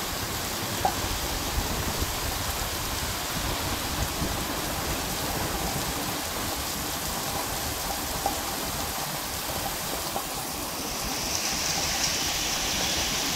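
Heavy rain falling on a wet street: a steady hiss with scattered ticks of drops. About eleven seconds in, the hiss grows louder and brighter.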